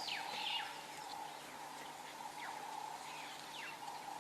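Wild birds calling in short, quick downward-sliding whistles, repeating every second or so, over a steady faint drone of outdoor background.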